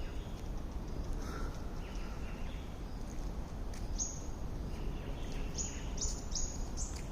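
Small birds chirping: short high notes that drop quickly in pitch, coming several in quick succession in the second half, over a steady low outdoor rumble.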